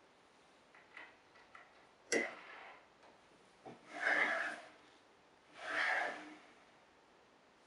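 Plywood stand of a homemade paracord jig sliding wood-on-wood along the tracks in its base, twice, each slide lasting under a second. A sharp click about two seconds in, and a few light taps before it.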